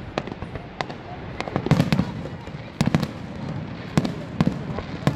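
Fireworks shells bursting: a string of sharp bangs at irregular intervals, the heaviest deep booms about two and three seconds in, over a steady rushing background.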